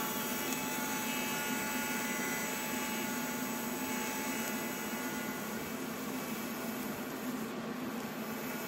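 TIG welding arc from an AHP AlphaTIG 200X at about 105 amps, burning steadily: an even hiss with a faint steady high tone and a low buzz underneath.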